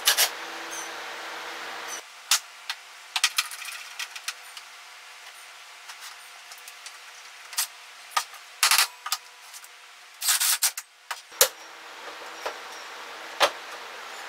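Workshop handling noises: scattered clicks and knocks of cordless drills, a bar clamp and plywood pieces being picked up, set down and clamped on a metal table-saw top, with a few short louder bursts, the loudest about nine and ten seconds in.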